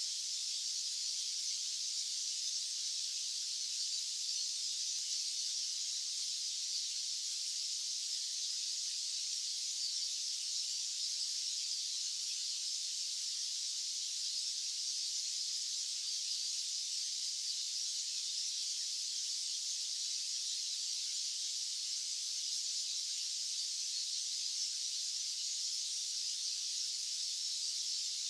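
White-noise track: a steady, unchanging high-pitched hiss with no low rumble.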